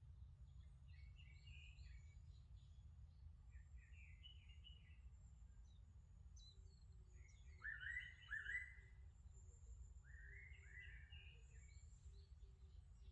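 Faint birdsong: short chirping phrases every few seconds, the loudest two near the middle, over a low steady rumble.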